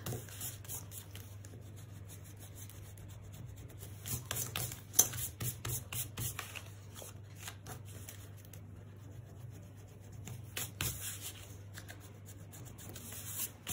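Pencil eraser rubbing out pencil lines on thin card, in short spells of soft scrubbing, with the card handled and pressed flat between them. A sharp tap about five seconds in.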